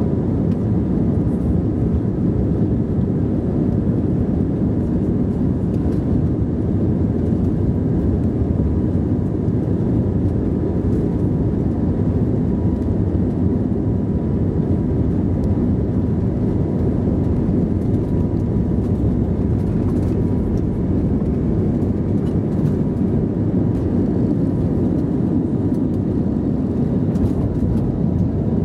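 Cabin noise of an Airbus A320neo on its takeoff run, its CFM LEAP-1A engines at takeoff power: a loud, steady rumble with a thin, steady whine above it as the jet accelerates down the runway and lifts off.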